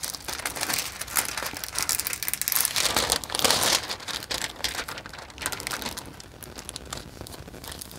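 A rolled diamond painting canvas with its plastic cover sheet crinkling as hands unroll and smooth it flat. The crinkling is loudest a few seconds in and eases off toward the end.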